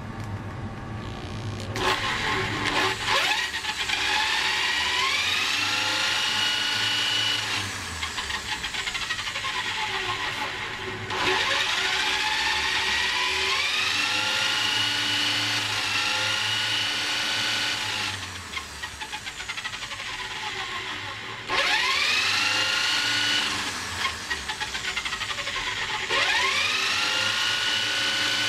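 A small electric motor starting up four times, each time with a whine that rises in pitch over a second or two and then holds steady before switching off.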